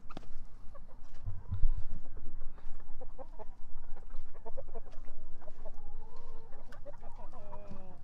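Laying hens clucking: a run of short calls from about three seconds in, turning into longer drawn-out calls near the end. A heavy thump comes about a second and a half in.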